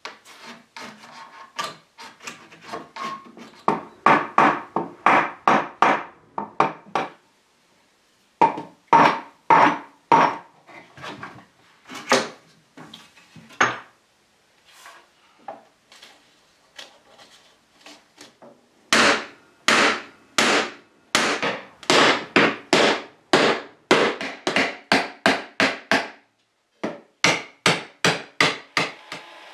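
Soft-faced mallet striking a wooden block to knock apart the glued joints of an antique wooden table: runs of sharp wooden knocks, about two a second, in several groups with short pauses between.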